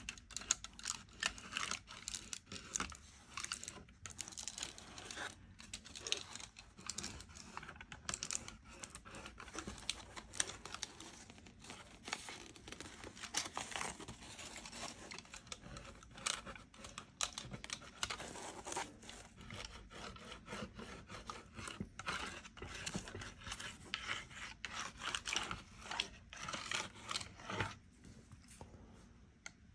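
Hand-worked abrasive rubbing on a guitar during setup work: fast, scratchy back-and-forth strokes that stop about 28 seconds in.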